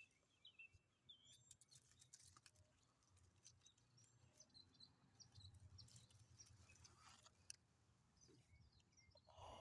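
Near silence, with faint short bird chirps now and then and a few soft clicks.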